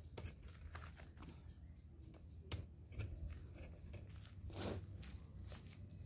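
Faint scattered clicks, knocks and rustles of someone handling things and moving about, with a brief louder scrape a little after the middle.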